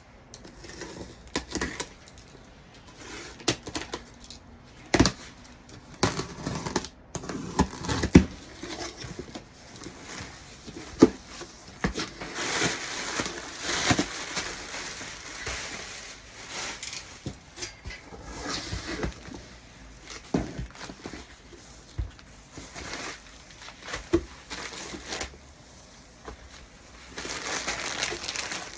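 A parcel being handled and unboxed: scattered knocks and taps against the box, with stretches of packaging crinkling and tearing.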